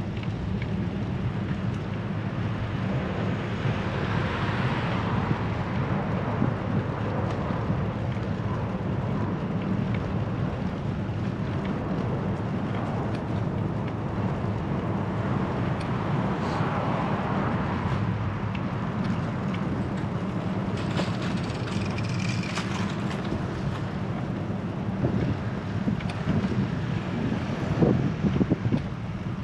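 Steady wind rumble on the microphone of a camera riding along on a bicycle, with city traffic passing. The noise swells and fades about five and seventeen seconds in, and brief high-pitched sounds come a little past twenty seconds.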